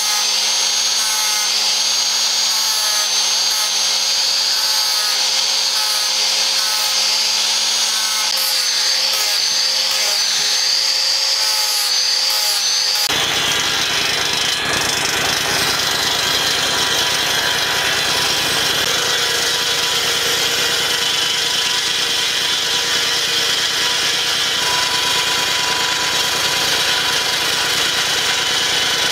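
Hand-held angle grinder with a sanding disc sanding a wooden axe handle, with a steady high whine. About halfway through it gives way abruptly to a bench circular saw running, with the handle pressed against its spinning blade to shape it, a denser, fuller steady noise.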